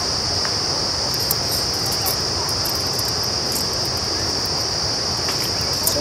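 Steady chorus of insects chirring, a constant high-pitched drone over a background hiss.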